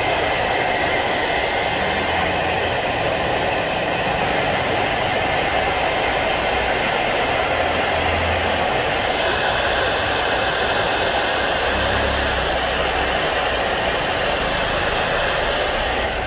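Hot air rework gun blowing a steady rush of hot air onto a smartphone's glued glass back cover, heating the adhesive to about 70–80 °C to soften it before the cover is prised off.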